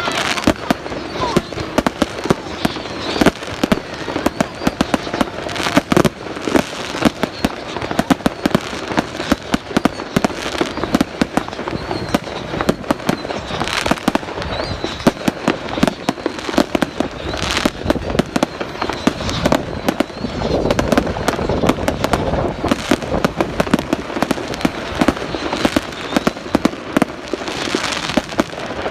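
Fireworks display: a dense, unbroken run of bangs and crackling bursts, many overlapping.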